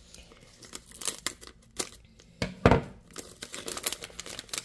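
A foil blind-bag packet being cut open across the top with scissors, its foil crinkling as it is handled. A single louder knock comes a little past halfway, and the crinkling grows busier near the end.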